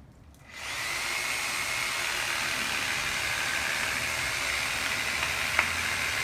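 Cordless power saw starting up about half a second in and running steadily with a thin whine as it cuts into a tree trunk. A single sharp crack sounds near the end.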